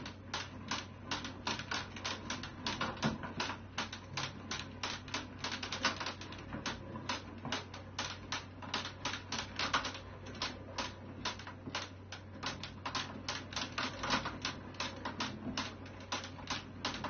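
Cat exercise wheel turning under a walking cat, clicking rapidly and evenly, several clicks a second.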